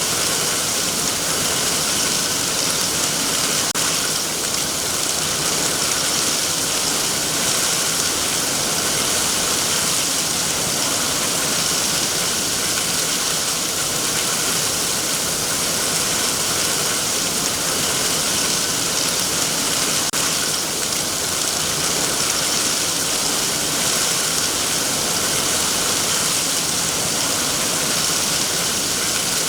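Heavy rain falling steadily on trees and their leaves, an even hiss with no breaks.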